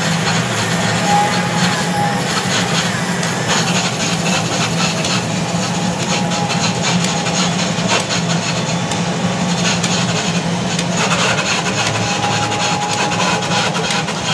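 Simple home-built wood lathe running, its cutter shaving a long coconut-wood (glugu) post with a steady rough scraping over the machine's constant hum.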